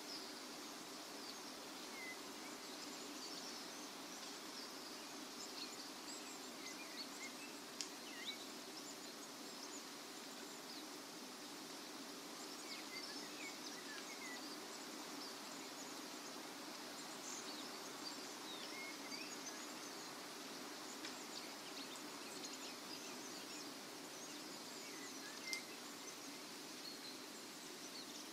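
Faint autumn nature ambience: a steady hiss with scattered small crackles and a few faint bird chirps. A couple of sharper pops come about eight seconds in, and one more near the end.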